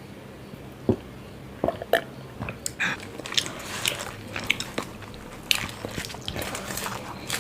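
A person chewing paratha with masala chaap close to the microphone: wet mouth clicks and smacks, a few scattered ones at first, then coming thick and fast from about two and a half seconds in.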